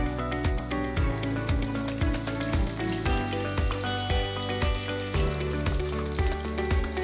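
Pieces of food deep-frying in hot oil, a dense crackling sizzle that thickens about a second in, over background music with a steady beat.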